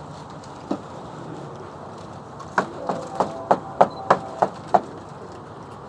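Wooden bee package being rapped to knock the bees down: one knock, then a quick run of about eight sharp knocks, some three a second.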